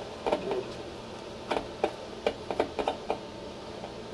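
A string of irregular clicks and crackles from a loudspeaker whose broken pigtail lead is being flexed with ohmmeter probes on its terminals. The break makes and loses contact, a sign of a snapped tinsel lead that causes intermittent cut-outs in the speaker's sound.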